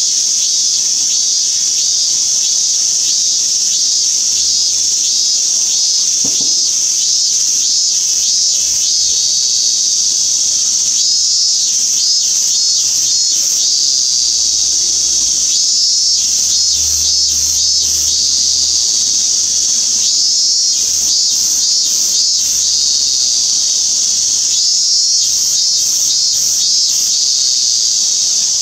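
Cicada song: a steady high-pitched drone with pulsing phrases repeated every few seconds on top, taken for a minminzemi (Hyalessa maculaticollis), though the species is marked with a question mark.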